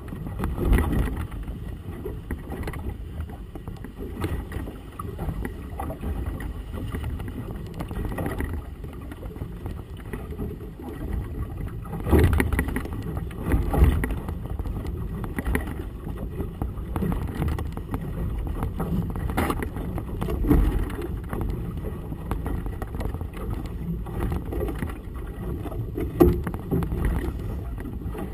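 Gusty wind buffeting the camera's microphone while choppy water slaps against a small boat's hull: a steady low rumble with a few louder irregular thumps.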